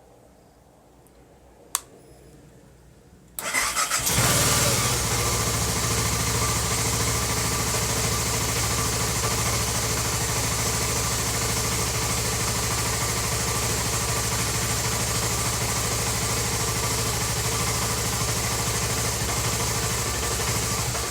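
A 2006 BMW F650GS's single-cylinder twin-spark engine is cranked on the starter, catches within about half a second and then idles steadily. A single sharp click comes a couple of seconds before the start.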